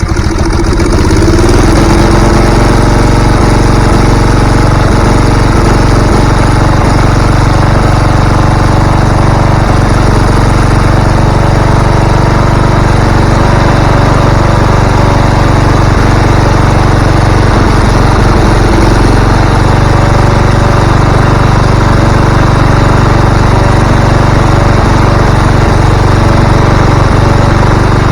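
Craftsman mower engine running steadily just after starting, its valve seat freshly repaired. It doesn't sound right and has a little whistle to it, which the owner puts down to the damaged valve seat or the exhaust.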